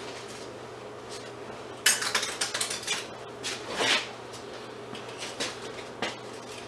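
Scrap metal pieces clinking and clattering as they are handled and dropped while being sorted, with a sharp clatter about two seconds in and another near four seconds, and a few lighter clicks after. A steady low hum runs underneath.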